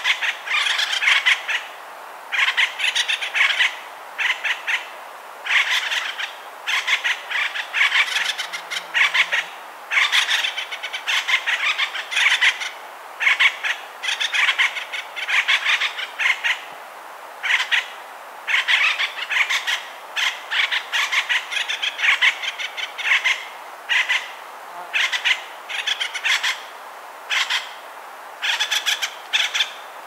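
Acorn woodpecker calling: short bursts of rapidly repeated notes, one burst every second or two.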